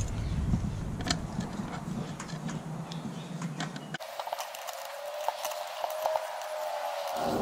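Small clicks and rattles of a metal light-fixture swivel bracket being handled against a plastic electrical junction box. About four seconds in, the sound cuts abruptly to a thinner track with faint steady tones.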